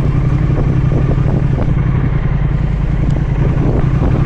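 Triumph Speed Twin 1200's parallel-twin engine running steadily at low revs, the bike rolling off on the clutch alone without throttle.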